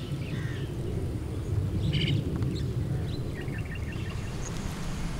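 Outdoor ambience: a steady low background rumble with birds chirping now and then, including a quick run of chirps about three and a half seconds in.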